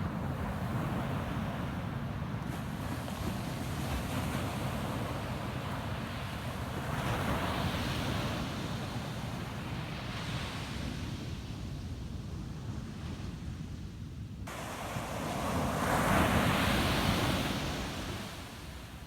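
Ocean surf washing onto a beach, swelling twice: once about halfway through and more loudly near the end. A low wind rumble on the microphone runs underneath.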